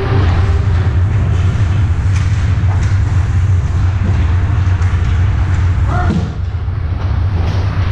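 Ice hockey warm-up in a rink: a steady low rumble under scattered clacks of pucks and sticks.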